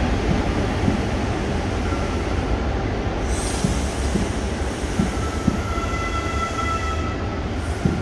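A train running past on the line: a steady rumble with scattered wheel knocks. A thin, high wheel squeal comes in about five seconds in and fades near the end.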